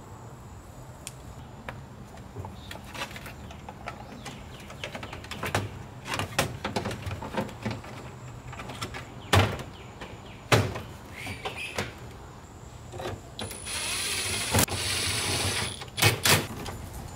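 Plastic centre-console trim being handled and pressed into a car's dash: scattered clicks and taps, a few sharper knocks, and a rustling scrape lasting about two seconds near the end.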